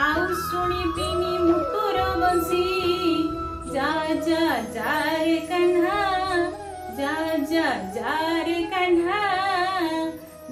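A devotional bhajan: an instrumental music break with held, wavering tones, then a woman's solo singing voice comes in over the accompaniment about four seconds in.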